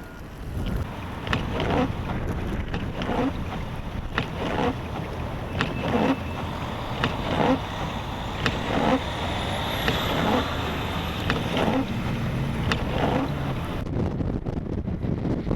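Footsteps crunching through deep snow at a steady walking pace, about one step every 0.7 seconds, over a steady rumble of blizzard wind.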